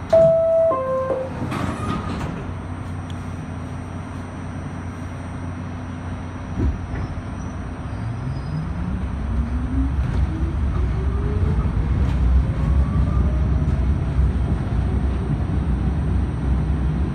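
R68A subway car at a station: a two-note descending door chime and the doors closing. The car then pulls out, its traction motors giving a whine that rises steadily in pitch as it accelerates, over a low wheel rumble that grows louder.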